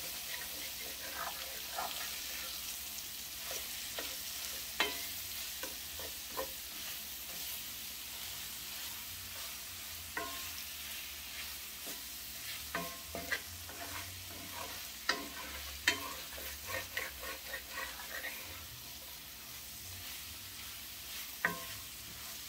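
Impossible plant-based ground meat and onions sizzling in a cast-iron skillet, stirred with a wooden spatula that scrapes and taps against the pan now and then.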